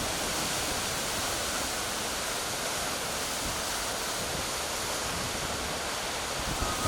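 Hurricane-force wind rushing steadily, an even roar with no breaks.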